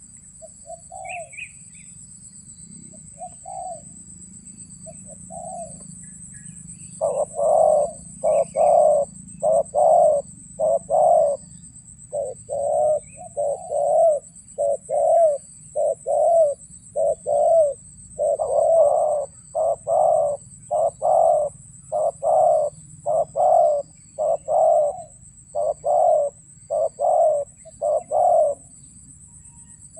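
Spotted dove (terkukur) cooing, faint and sparse at first, then a long run of loud, evenly repeated coo phrases from about seven seconds in. A steady high-pitched whine sits underneath throughout.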